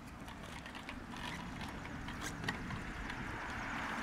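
Child's bicycle with training wheels rolling along a concrete sidewalk, rattling, with scattered sharp clicks and knocks over a steady rolling rumble.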